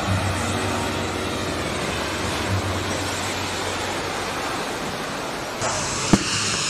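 Steady rushing splash of a shoal of sardines leaping at the surface around a fire-fishing boat, over the low hum of the boat's engine. About five and a half seconds in the rush turns brighter, and a single sharp click follows.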